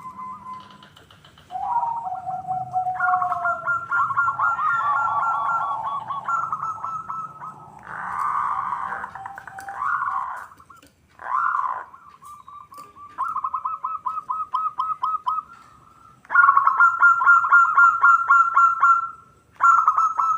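Zebra doves (perkutut) singing: rapid staccato cooing trills around one pitch, repeated in bouts of a few seconds with short pauses between, the loudest bout coming in the second half.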